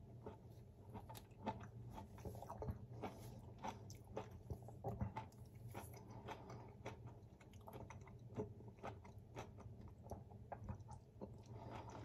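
Faint close-up chewing of juicy orange segments, with many small wet mouth clicks and smacks coming irregularly, several a second.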